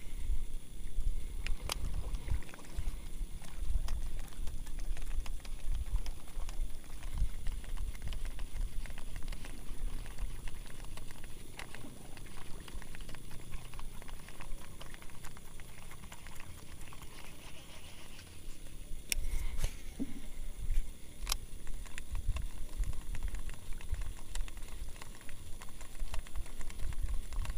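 Water lapping and splashing against the hull of a small wooden boat, with a low uneven rumble and a few sharp clicks about 2, 19 and 21 seconds in.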